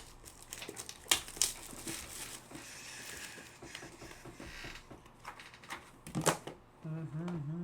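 Trading card packs and cards being handled: crinkling and tearing of wrappers, with a few sharp clicks, the loudest about six seconds in.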